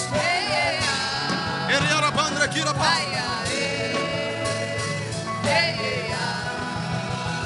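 Worship music: held chords under a wavering melodic line with vibrato, sung or played without words.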